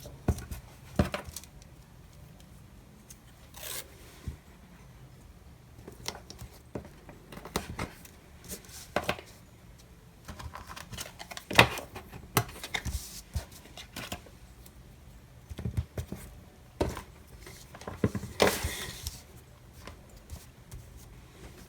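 Scissors snipping and washi tape being peeled and handled on paper planner pages: scattered sharp clicks and short rustles, with a longer tearing rasp about three-quarters of the way through.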